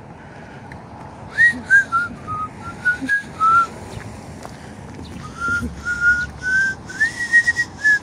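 A person whistling a slow melody, one clear note at a time, in two phrases with a short pause between them.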